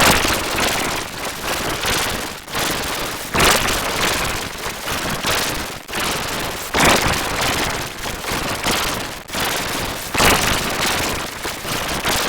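A siren-and-horn ringtone put through a heavy distortion effect, leaving loud, harsh crackling noise with a surge a little more than once a second. It cuts in and stops abruptly.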